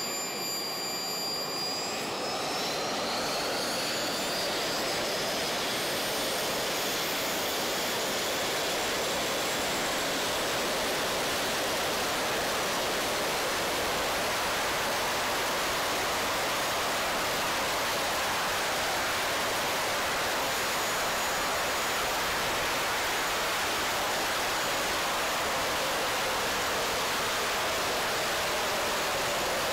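Small gas turbines of a Gravity Industries jet suit. A high whine rises as they spool up a couple of seconds in, then gives way to a steady, loud jet roar.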